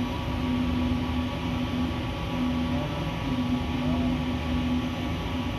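A motor running steadily, a constant low hum with a droning tone that drops out briefly now and then.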